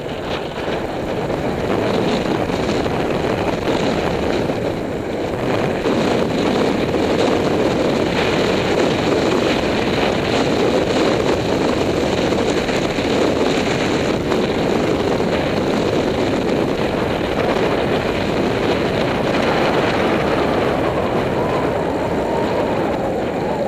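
Steady rush of wind buffeting the microphone of a camera on a road bicycle moving at speed.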